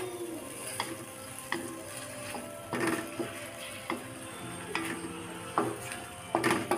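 Wooden spatula stirring and scraping chicken pieces through thick chili sauce in a wok, with irregular scrapes and knocks against the pan over the sizzle of the sauce frying.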